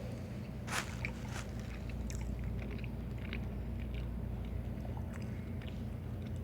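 Close-up eating sounds: chewing and biting, with scattered small wet clicks and crackles over a steady low hum.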